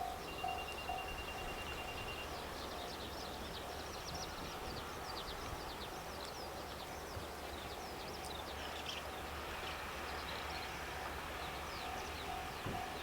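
Level crossing warning bell ringing in a steady rapid beat, about four strokes a second, fading in the middle and growing louder again near the end, with small birds chirping.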